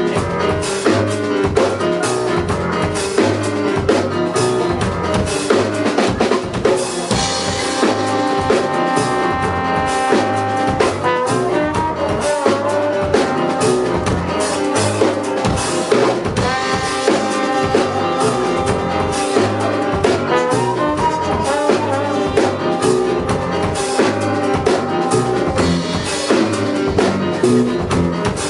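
Big band of trumpets, trombones, woodwinds, guitar, bass and drum kit playing a contemporary piece in 5/4 time. The drum kit drives a busy beat throughout, and the horns come in with held chords twice, about a quarter of the way in and again past the middle.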